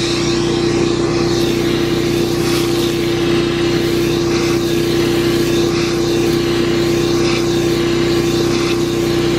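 Vacuum hose sucking fines and gravel off a drywasher's riffle tray during cleanup, with grit ticking and rattling up the hose over a loud, steady motor drone.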